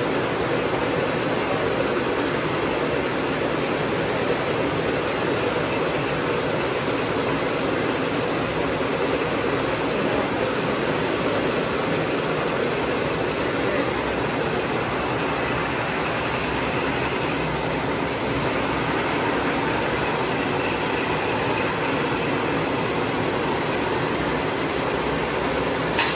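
Steady, even noise of running machinery, with no rhythm and no change in level.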